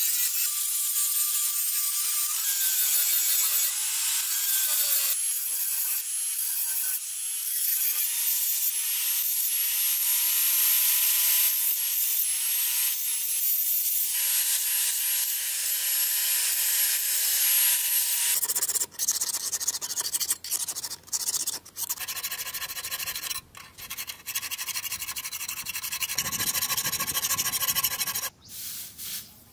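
Handheld electric angle grinder with an abrasive disc grinding a leaf-spring steel knife blank: a loud hiss of the disc on the metal over a steady motor whine. About two-thirds of the way in, the grinding breaks into short passes with brief gaps.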